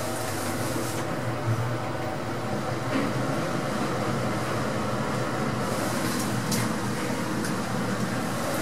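Mitsubishi machine-room-less (MRL) lift car travelling upward: a steady low hum with an even hiss as the car runs through the shaft, with a few faint ticks.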